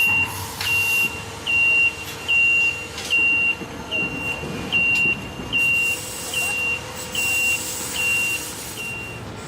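Electronic warning beeper sounding one high steady tone, a short beep about every 0.8 seconds, stopping near the end. Steady machinery noise runs underneath.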